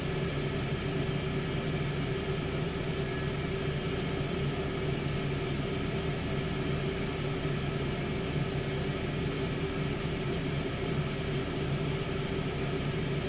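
Tower air fryer oven running mid-cook, its fan giving a steady, even hum with a low drone underneath.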